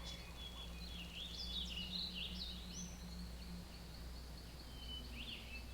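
Birds chirping and twittering in short rising and falling notes, busiest about a second or two in, over a faint steady low hum.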